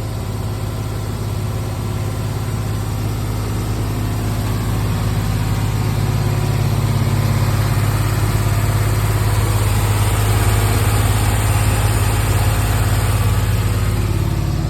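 Hemi V8 engine idling steadily, growing gradually a little louder over the first several seconds and then holding. It is running to warm up so that air can be bled out of the freshly refilled cooling system through a funnel.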